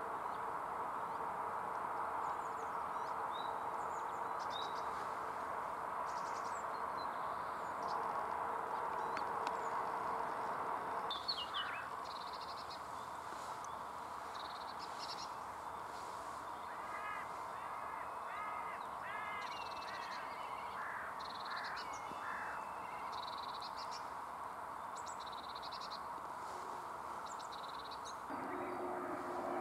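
A tit singing: short, repeated high notes that come in bursts for much of the second half. Before that, a steady hazy background with other bird sound, which changes abruptly about eleven seconds in.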